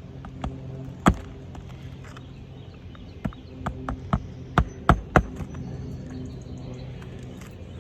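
Hammer knocking on brittle asphalt roof shingles: one sharp knock about a second in, then a quick run of knocks between about three and five seconds in, over a steady low hum.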